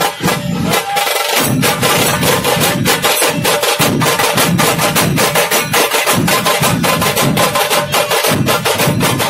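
An Indian procession band playing: drums beaten fast and densely, with a melody line held over them.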